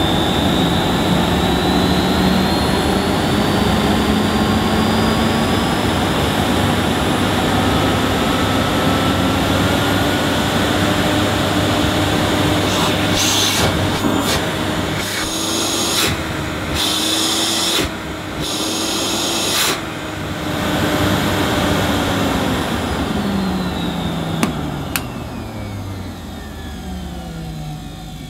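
Hoover Sensotronic 1000 (S3716) 900-watt cylinder vacuum cleaner running, its motor whine rising in pitch over the first few seconds, with the rush of air swelling and dropping several times in the middle. Over the last few seconds it winds down with a falling whine. It sounds fine.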